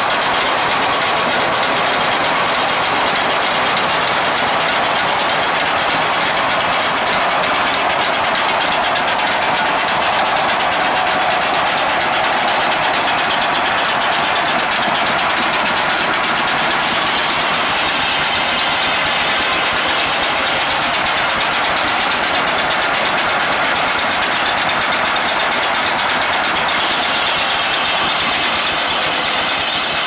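Steam-powered sawmill running: a loud, steady machinery noise that carries on without a break.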